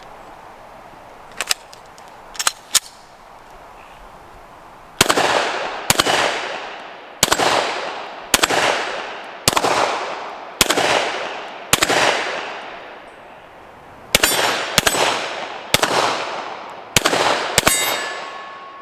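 A Glock 17 9mm pistol fired in a steady string of about a dozen shots, roughly one a second, each report trailing off in a long echo. A few sharp clicks come before the first shot.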